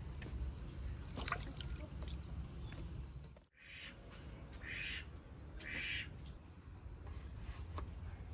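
A bird gives three harsh calls about a second apart, over a low steady background rumble.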